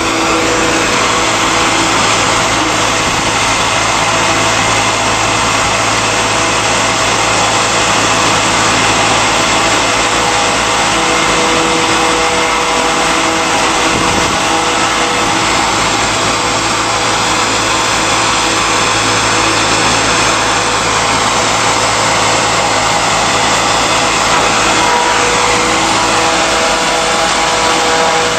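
YuLong rotary stalk crusher running while it grinds a load of crop stalks: a loud, steady machine noise with a constant low hum.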